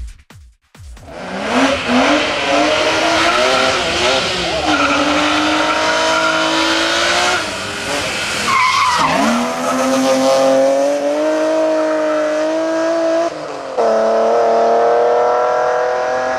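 BMW 3 Series hill-climb race car engine at full throttle, its pitch climbing and falling back with each gear change, about three times.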